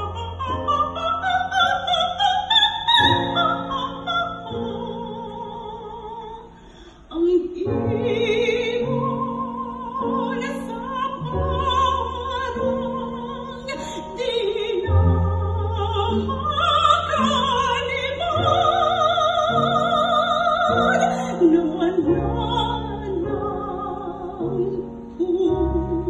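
A woman singing in operatic style with a wide vibrato over instrumental accompaniment. A run of notes rises near the start, and the music dips briefly about seven seconds in before carrying on.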